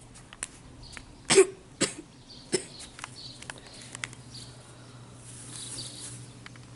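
A girl coughing three sharp times in quick succession, faked as a sign of being poisoned.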